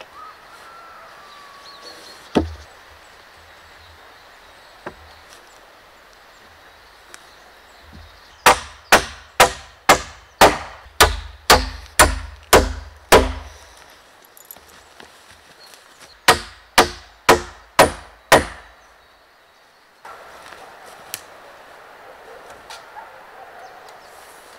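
Claw hammer nailing at the corner joint of a rough-sawn timber frame: a run of about ten blows at roughly two a second, a short pause, then five more. A single knock comes about two seconds in.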